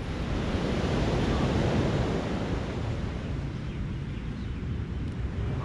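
Small ocean waves breaking and washing up the beach, swelling about half a second in and easing after a few seconds, with wind buffeting the microphone.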